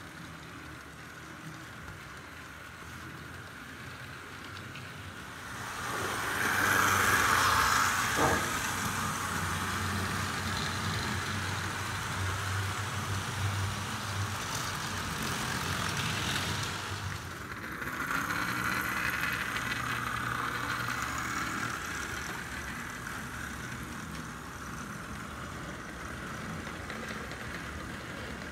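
HO-scale model freight train, pulled by Athearn blue box diesels, running on sectional track on a hardwood floor: a steady rolling rumble of wheels on rail with a low motor hum. It grows louder about six seconds in as the train passes close, dips briefly about two-thirds of the way through, then eases off.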